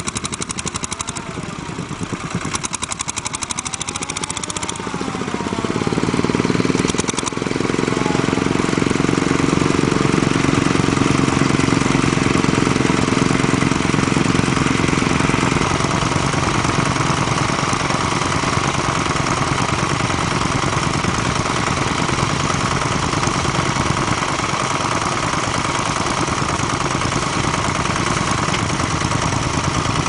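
Small engine of a vintage two-wheeled walking tractor running steadily as it pulls a plough through the ground, louder from about six seconds in.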